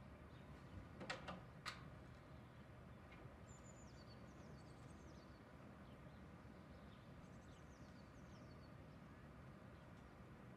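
A door's lever handle and latch clicking a few times as a wooden door is opened. Then birds chirp faintly in two short runs of falling notes over a quiet background.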